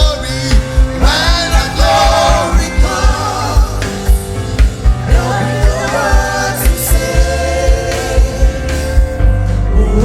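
Gospel worship music: singing voices over a band with a steady drum beat.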